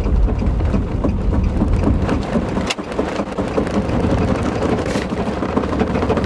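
Loud, steady rumbling road and vehicle noise heard inside a car cabin, with a brief break about two and a half seconds in.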